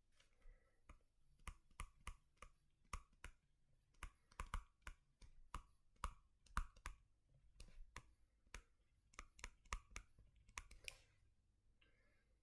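Faint, irregular light clicks and taps, roughly two a second: a stylus tapping and writing on a tablet screen.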